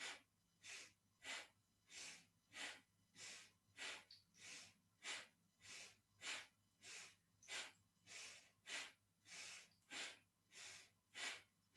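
A person breathing audibly in a quick, even rhythm, in and out in turn, about three breaths every two seconds. This is paced yoga breathing timed to alternating shoulder lifts.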